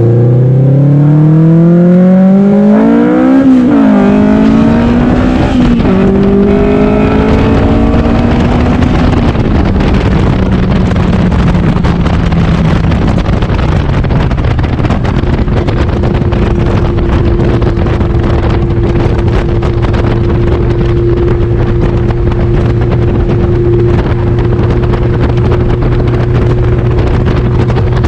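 Custom tube-chassis car's engine and exhaust, heard from the open cockpit, accelerating hard. The pitch climbs, drops sharply at two upshifts about three and a half and six seconds in, and climbs again. It then settles into a steady cruise under heavy wind noise.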